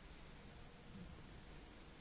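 Near silence: faint steady hiss of the recording.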